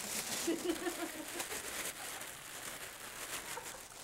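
A clear plastic food bag crinkling and rustling in irregular bursts as it is handled. It holds chicken parts coated in seasoned flour.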